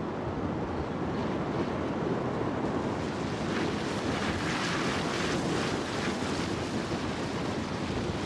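Wind buffeting the microphone: a steady rushing noise that gusts harder midway and cuts off abruptly at the end.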